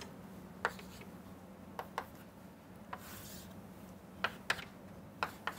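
Chalk on a blackboard: a handful of short, irregular taps and scrapes as lines and arrowheads are drawn, over a faint steady hum.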